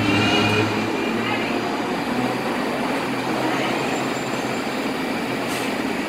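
R62A subway train pulling into an elevated station and slowing almost to a stop: a steady rumble of wheels on rail, with faint high whining tones in the first second and a short hiss near the end.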